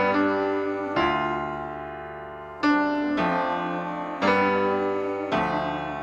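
Background music: slow piano chords, a new chord struck every second or so and left to ring and fade.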